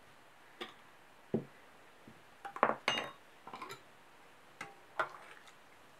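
A handful of separate clinks and knocks of kitchenware on a table: a stainless-steel pot, a metal spoon and a glass jar being moved and set down. The loudest clink comes about three seconds in, with a short ringing.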